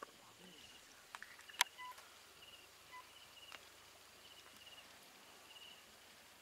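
Cricket chirping in short pulsed trills, roughly every half second, with a few sharp clicks; the loudest click comes about one and a half seconds in.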